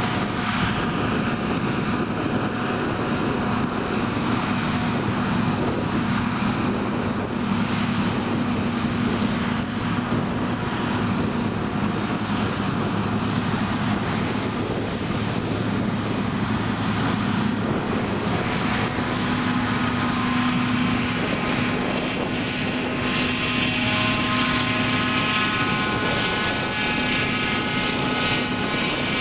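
John Deere self-propelled forage harvester running steadily while chopping maize, a continuous diesel drone with several held machine tones over it.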